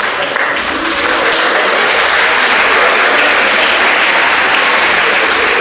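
Theatre audience applauding, swelling over the first couple of seconds and then holding steady.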